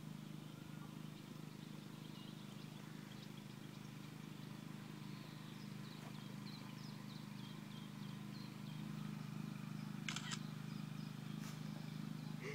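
Steady low hum of a generator engine running, with songbirds chirping faintly over it. A short, sharp sound comes about ten seconds in.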